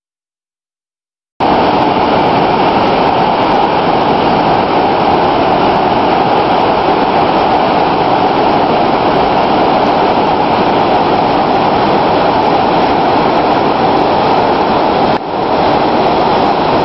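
Gokak Falls in flood: a loud, steady rush of falling water that starts suddenly about a second and a half in, with a brief dip near the end.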